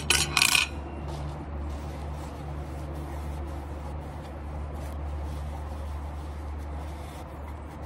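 Paper towel rustling and rubbing as a ceramic bowl is wiped out by hand, with a short louder crackle right at the start, over a steady low hum.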